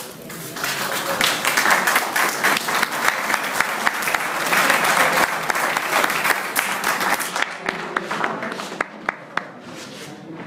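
A small group of spectators applauding with hand claps, thinning after about seven seconds to a few last scattered claps.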